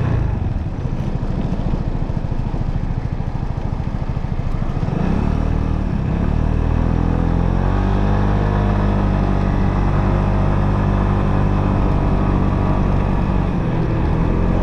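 Motorcycle engine running: rough and pulsing at first, then about five seconds in its pitch shifts and it settles into a steady, even note.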